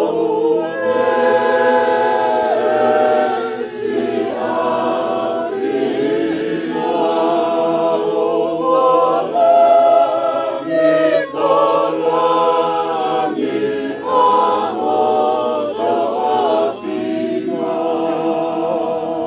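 A choir of mourners singing a hymn in Tongan, unaccompanied, in several voices together, in long held phrases with short breaks between them.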